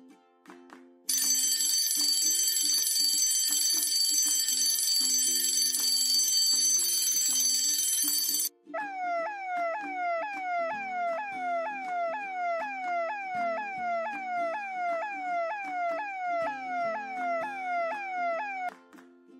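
Fire station alarm bell ringing loudly for about seven seconds and stopping abruptly, then a fire engine siren sounding a quick repeating falling tone, about two a second, over light background music.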